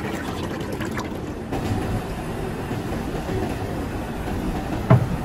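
Steady low rumbling factory background noise, with a single heavy thump about five seconds in.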